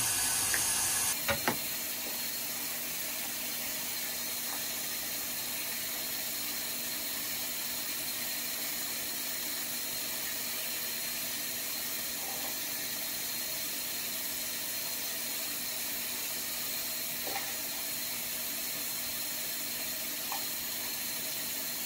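Bathroom sink faucet running steadily into the basin, with a couple of light knocks about a second and a half in.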